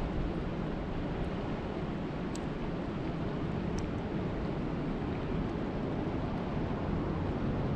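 Steady rushing noise of water and rain, even throughout, with a few faint ticks.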